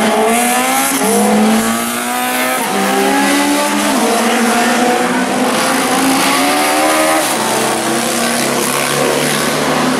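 Racing sidecar outfits accelerating past, their engines revving hard. The engine notes climb and drop back several times as the outfits shift up through the gears.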